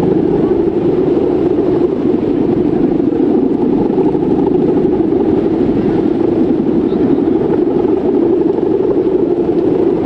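Guangan hummer bow on a large Balinese bebean kite, droning as the wind drives its string: one loud, steady, slightly wavering buzz.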